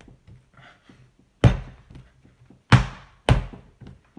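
A ball of pizza dough slapped down onto a marble slab three times, a dull thud each time, the last two close together, with quieter handling sounds between: the dough being kneaded by slapping and stretching to give it elasticity.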